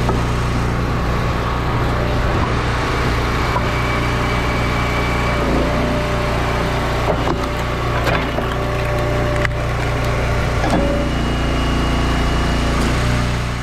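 Gas engine of a log splitter running steadily. In the second half, several sharp cracks of hickory rounds splitting under the ram.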